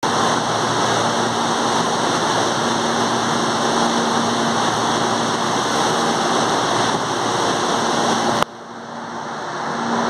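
Electric commuter train running along a station platform: a steady rush of wheel and running noise with a faint low hum. About eight and a half seconds in the sound drops off suddenly with a click, then builds up again.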